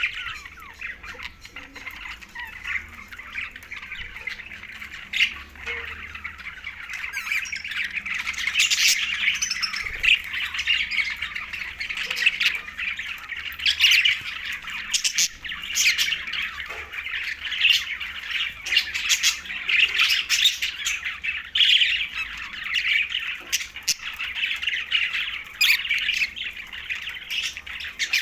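A group of budgerigars chattering continuously, a dense warbling with many sharp short squawks and chirps over it; it grows busier and louder about eight seconds in.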